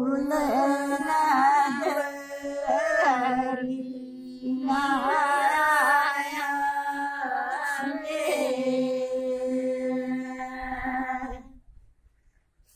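Women's voices singing a traditional wedding song unaccompanied, in two long phrases over a steady held note. The singing stops near the end.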